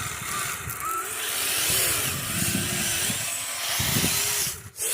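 Small electric motor and gear drivetrain of a radio-controlled scale crawler whining, its pitch rising and falling with the throttle as it climbs over a railroad tie, over a steady noisy hiss. The sound drops out briefly near the end.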